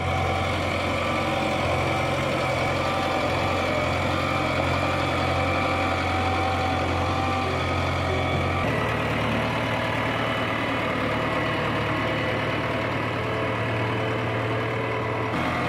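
Diesel engine of a JCB 3DX backhoe loader idling steadily. Its low hum changes abruptly a little past halfway, then carries on steadily.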